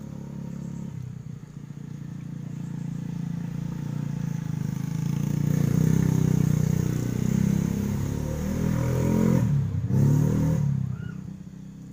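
A motor vehicle engine passing close by: it grows louder through the first half, its pitch dips and climbs again about ten seconds in, then it fades away near the end.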